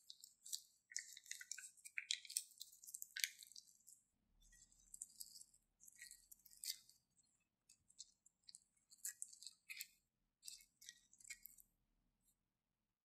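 Thin plastic piping bag crinkling and crackling in short irregular bursts as it is squeezed by hand, pressing slime out of its cut tip.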